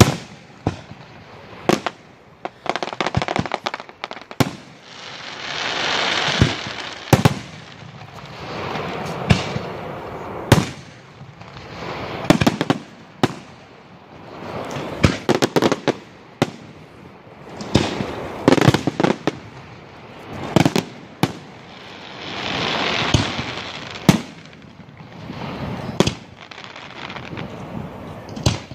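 Fireworks display: aerial shells bursting in a run of sharp bangs, one every second or two, with noisy swells lasting a second or two between them.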